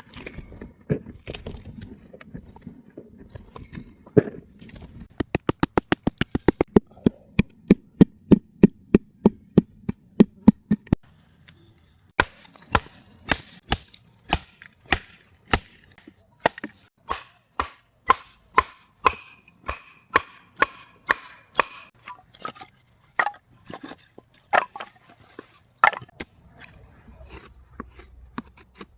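Repeated sharp chopping strikes on wood. A fast, even run of about five strikes a second comes first, then a short pause, then slower, irregular strikes.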